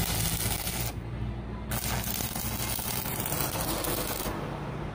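Electric arc welding on steel tubing: the arc's crackling hiss in two runs, the first stopping about a second in and the second starting shortly after and stopping near the end, over a steady low hum.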